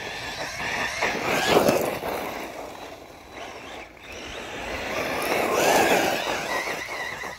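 Radio-controlled short-course truck driving fast on gravel: a high motor whine that wavers with the throttle over the rush of tyres on loose stones, swelling loud twice, about a second and a half in and again near six seconds, as it runs close.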